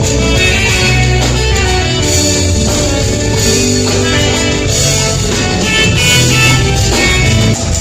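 Loud band music with guitar, bass and drums and a steady beat.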